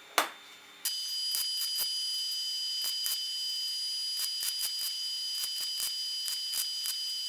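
A single sharp knock as the welding machine's clear plastic display cover is shut. From about a second in, a MIG welding arc from a Fronius TPS 320i welder tacks a steel disc onto a rod: a steady crackling hiss with a high whine and irregular sharp pops.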